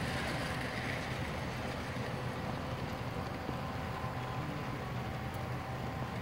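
O-scale model train, a Chesapeake and Ohio Allegheny steam locomotive hauling coal hoppers, running along the layout track with a steady running noise of wheels and motor.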